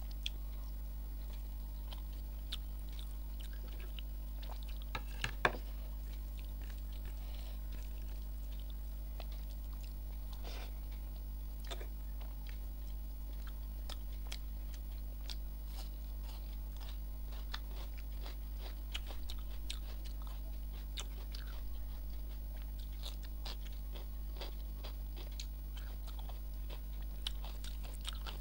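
Close-miked eating: chewing and biting with soft, scattered wet mouth clicks as rice and curry are eaten by hand, the loudest click about five and a half seconds in. A steady low hum runs underneath.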